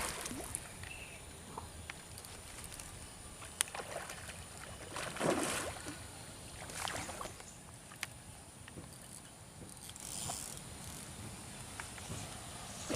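Water splashing and sloshing in uneven surges a second or two apart, with a few sharp clicks, as a hooked patin catfish thrashes at the surface during the fight.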